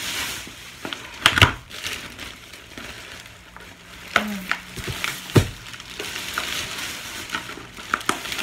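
Plastic shopping bags rustling and crinkling as groceries are unpacked, with a few sharp knocks, the loudest about a second and a half in and again past the middle.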